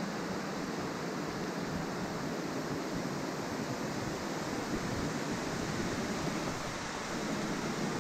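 Waterfall: falling water rushing steadily and evenly.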